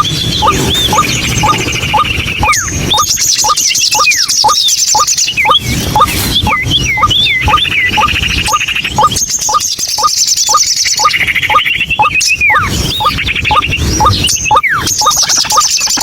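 White-breasted waterhen (ruak-ruak) calling: a fast, even run of short repeated notes, about three a second, with higher chattering and a few falling whistles over them.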